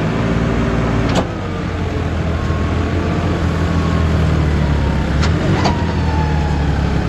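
John Deere 5405 tractor's diesel engine running steadily as the tractor creeps forward, with a sharp click about a second in and two more about five seconds in.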